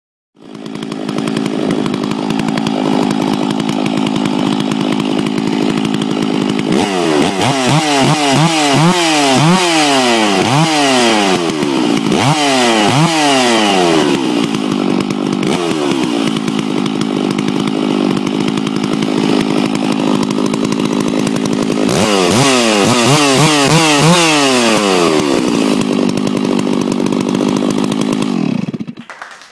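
Stihl MS660 two-stroke chainsaw with a dual-port exhaust muffler, idling, then revved hard in quick throttle blips in two spells, settling back to idle after each. Near the end the engine winds down and stops.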